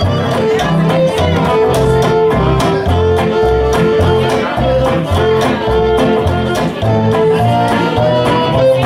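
Live swing band playing an instrumental passage: fiddle and acoustic guitar over a walking upright bass, with long held melody notes above a steady strummed beat.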